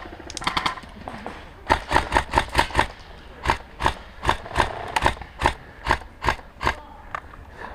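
A short burst of airsoft gunfire just after the start, then a run of thudding footsteps, quick at first and then steadier at about two and a half steps a second.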